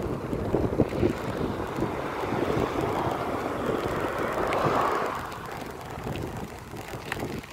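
Wind buffeting the microphone of a bicycle-mounted phone while riding, over road traffic noise. A passing vehicle swells to a peak about five seconds in, then fades.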